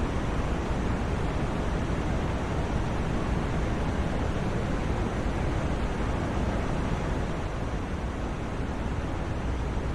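Steady, even white-noise hiss for sleep, fuller in the lows and softer in the highs, without any change.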